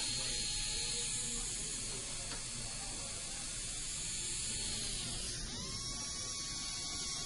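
Dental polishing handpiece running with a steady hiss and a thin high whine; about five seconds in, the whine shifts and settles at a new pitch as the motor's speed changes.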